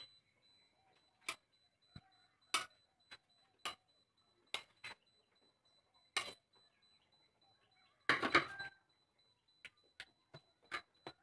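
A spoon clicking and scraping against a plate and a plastic cup in scattered light taps, with a denser flurry about eight seconds in, as chopped carrot, leek and garlic are scraped into beaten egg.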